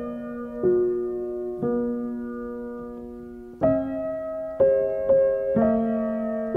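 Slow, gentle piano background music: chords struck about a second apart and left to ring, with one long held chord before louder playing resumes near the middle.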